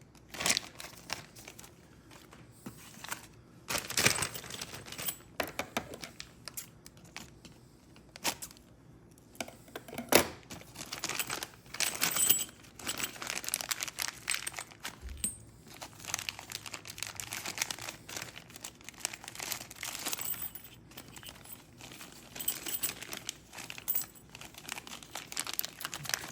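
Small lock parts being handled by hand: an irregular run of light clicks, taps and crinkling rustles, with sharper clicks about four and ten seconds in.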